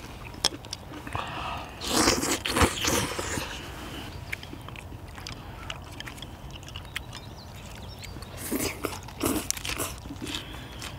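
Close-up eating sounds: crunchy bites and chewing in two loud clusters, about two seconds in and again near the end, the later one as a lettuce wrap of stir-fried chicken is bitten into.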